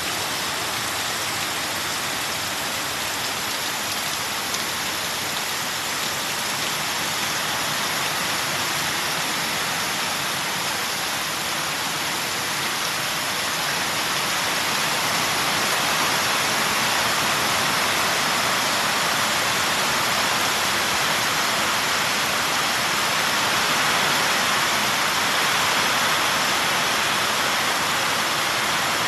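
Heavy rain falling steadily in a downpour, a little louder from about halfway.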